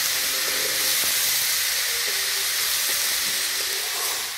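Diced vegetables sizzling as they are stir-fried in a black iron wok over a wood fire, a steady hiss with a metal ladle ticking against the pan now and then. The sizzling drops off near the end.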